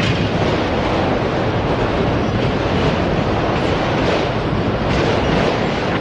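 Freight train cars rolling past on the rails: a loud, steady rumble with faint clacks now and then.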